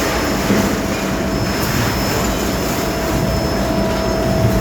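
Steady, loud machine noise with a constant hum.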